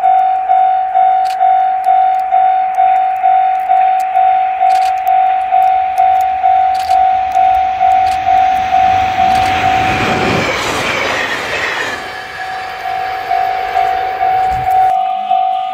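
Japanese level-crossing warning bell ringing steadily, just under two strikes a second. A JR Hokkaido H100 diesel railcar passes close about ten seconds in: a swelling rush of wheels on rail with a pitched whine that falls as it goes by, briefly covering the bell, which then rings on alone.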